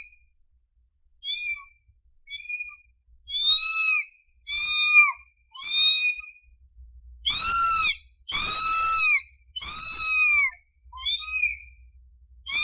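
A hungry kitten meowing over and over, calling for its mother: about ten high, thin meows, each under a second long and arching up then down in pitch, spaced about a second apart, with the loudest ones in the middle of the run.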